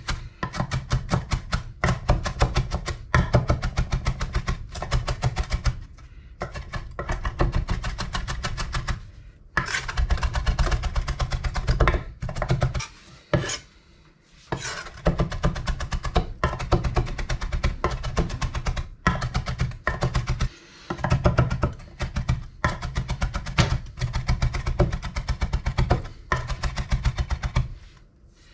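Zwilling chef's knife rapidly chopping fresh greens on a cutting board: fast, even knife strokes thudding on the board, in runs of a few seconds broken by brief pauses.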